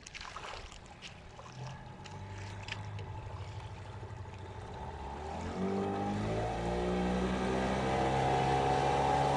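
Yamaha outboard motor running, its pitch and loudness rising about five to six seconds in as the revs go up, then holding steady. A few light clicks near the start.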